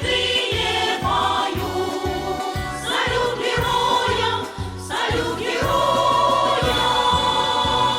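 A folk choir singing with instrumental accompaniment over a steady beat, settling into a long held chord in the second half.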